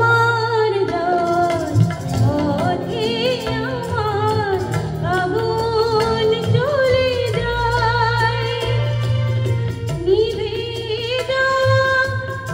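A woman singing a Bengali song live over instrumental accompaniment, holding long notes with a wide vibrato.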